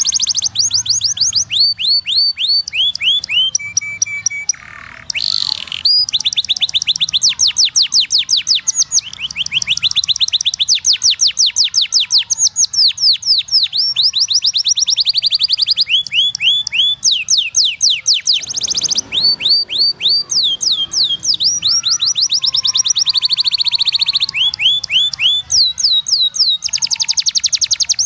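Domestic canary singing: fast trills of repeated, downward-sweeping high notes, switching to a new trill every second or two, with a brief pause about four and a half seconds in.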